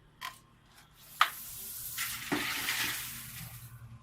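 A sharp knock, then about two seconds of dry rustling hiss as loose dusty debris is shifted or emptied out.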